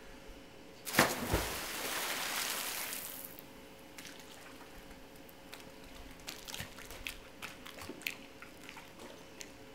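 A diver entering a swimming pool off a diving board: a sharp splash about a second in, a rush of spray falling back for about two seconds, then small splashes and water lapping.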